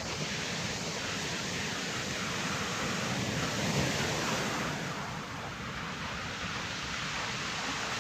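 Steady rushing of sea surf and wind on the microphone, swelling a little about four seconds in.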